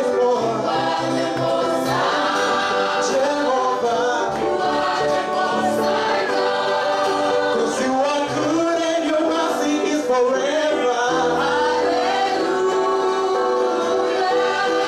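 A group of voices singing a gospel worship song, accompanied by an electric keyboard and an acoustic guitar.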